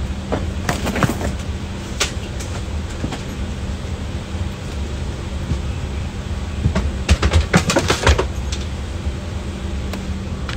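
Steady low hum of an airliner cabin parked at the gate, with a held low tone. A run of clicks and knocks comes between about seven and eight seconds in.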